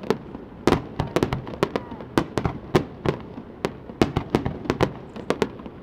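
Fireworks going off: an irregular run of sharp bangs and cracks, a few a second.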